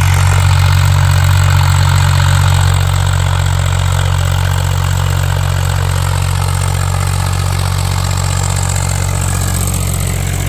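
Swaraj 843 XM tractor's three-cylinder diesel engine running steadily under the load of a heavy disc harrow, holding its revs without dropping. It has the whistling note typical of a Swaraj engine.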